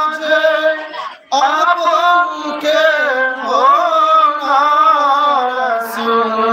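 A man singing a naat, a devotional song in praise of the Prophet, solo with no instruments, in long held, gliding notes. He breaks off briefly for breath about a second in.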